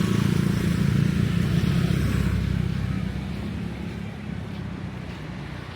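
A motor vehicle's engine passing close by in street traffic, loudest in the first couple of seconds and then fading away.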